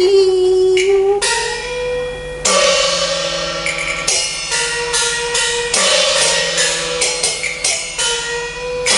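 Cantonese opera accompaniment: a held note for about the first second, then from about two and a half seconds in the percussion section strikes cymbals repeatedly at an uneven pace over sustained melodic instrument tones.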